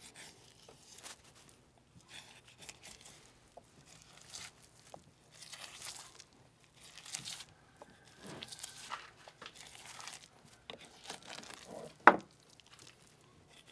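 Knife cutting the rib bones off a beef rib roast: quiet, irregular slicing and tearing of meat, with one sharp knock near the end.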